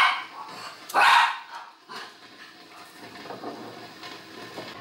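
A dog barks twice, two short, sharp barks about a second apart.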